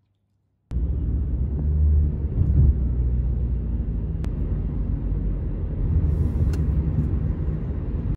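Wind buffeting the microphone outdoors: a heavy, gusting low rumble that starts suddenly under a second in.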